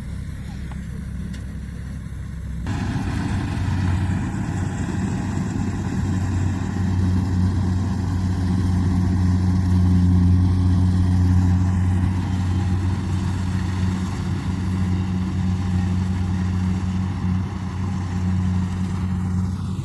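Kubota rice combine harvester running steadily under load, a low engine hum that grows louder and fuller about three seconds in.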